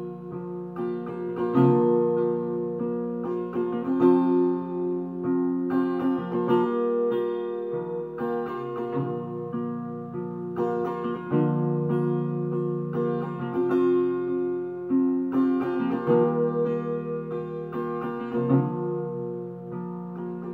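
Solo acoustic guitar strumming chords, the chords ringing on and changing every couple of seconds.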